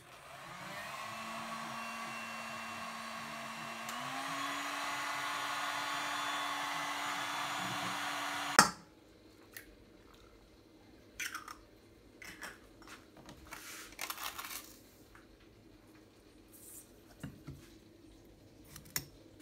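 Hand-held electric heat gun blowing, its motor tone stepping up in pitch and getting louder about four seconds in, then cutting off suddenly after about eight and a half seconds. After that, eggs cracked into a stainless steel pot and a spoon clinking against it, with scattered short clicks.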